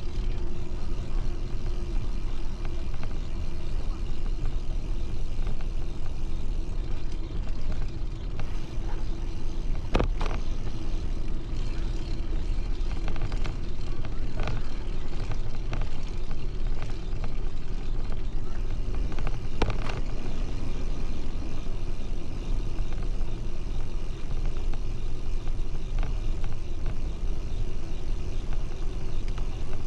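Steady low rumbling noise of a bicycle ride: wind on the microphone and tyres rolling on the asphalt path, with a few sharp clicks or knocks through the middle.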